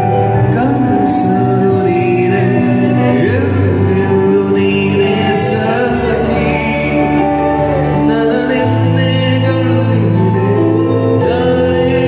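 Live male vocals singing a slow Kannada film song into microphones over electronic keyboard accompaniment, amplified through PA speakers. Long held melody notes sit over sustained low chords that change every few seconds.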